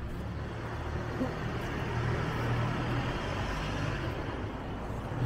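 A motor vehicle's engine running as it passes close by in street traffic, its hum and rush swelling to the loudest around the middle and easing off near the end.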